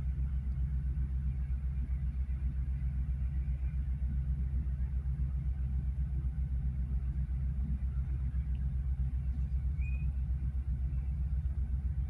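A steady low rumble with a fast, even flutter in its loudness.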